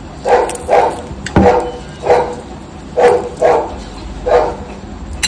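A dog barking repeatedly: about seven short barks, some in quick pairs.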